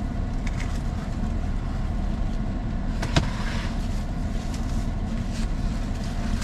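Steady low rumble of an idling car, heard from inside the cabin, with a single sharp click about three seconds in.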